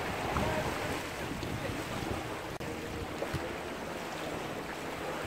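Wind buffeting the microphone over the wash of small waves at the water's edge, with a brief dropout about two and a half seconds in.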